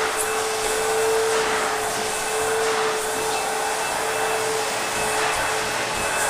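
ProTeam backpack vacuum cleaner running steadily: a constant motor tone over the rush of air being drawn through the hose.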